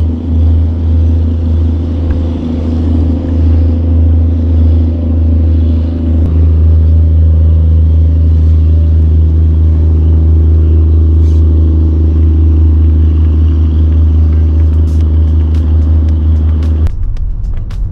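An engine running steadily with a low drone, which grows slightly louder and steadier about six seconds in. Music comes in just before the end.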